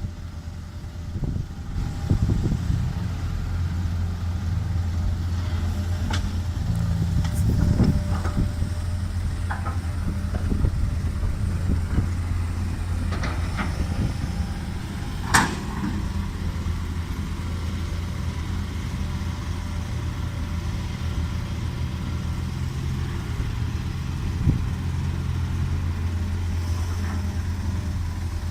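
Tracked excavator's engine running steadily as it digs and loads soil into a dump truck, with occasional clanks and knocks, the sharpest about halfway through.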